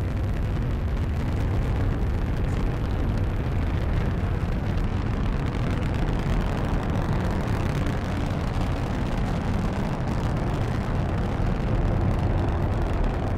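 Falcon 9 v1.1 first stage, its nine Merlin 1D engines firing in ascent: a steady, unbroken rocket roar, heaviest in the deep bass.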